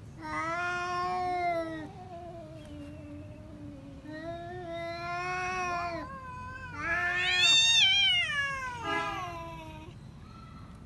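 Domestic cats in a face-off yowling: long, drawn-out caterwauls, the warning yowls of a territorial standoff. Three long yowls, the third the loudest, rising sharply in pitch and then sliding back down.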